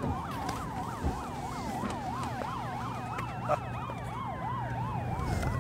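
Several sirens sounding at once: a fast yelp sweeping up and down about four times a second over slower wailing glides, with a low hum underneath. Two short sharp clicks, about a second in and halfway through.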